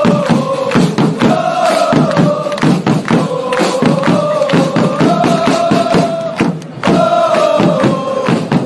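A crowd of football supporters singing a club anthem in unison, in long held phrases a few seconds each, over regular drum beats.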